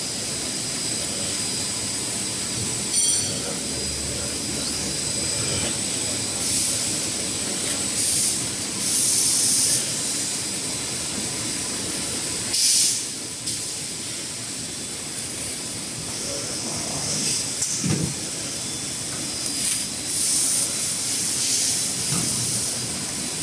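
Kitchen-towel heat-shrink packing machine running, a steady mechanical noise with a constant high whine, broken several times by short hissing bursts.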